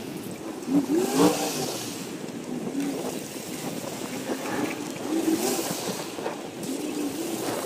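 Pickup plow truck's engine revving up and down as it pushes slush across the flooded lot, with a steady wet hiss of slush and water under the tyres and blade.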